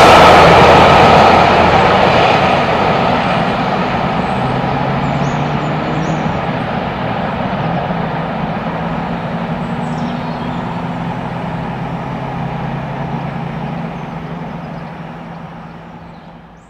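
Coaches of a steam-hauled express train rolling past at speed, their wheels running loud on the rails, then the sound falling away steadily as the train draws off into the distance. It fades out near the end.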